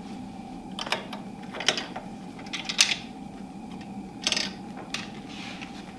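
A handful of light knocks and clicks as a wooden block is set down and shifted about on a drill press table, one of them a quick rattle, over a steady low room hum.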